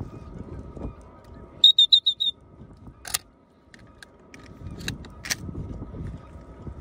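A shrill handheld whistle blown in five quick, loud pips about a second and a half in. Two sharp clicks follow, over a low steady noise.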